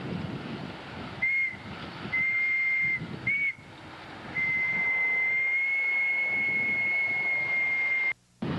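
Steam whistle of live steam locomotive #988, a single high steady note sounded in four blasts: short, longer, short, then one long blast that cuts off sharply near the end, as the engine is about to move off.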